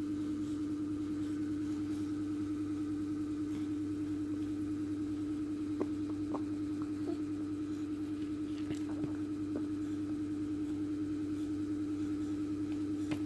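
Steady mechanical hum, one constant low pitch with a slight even pulsing, with a few faint light clicks midway.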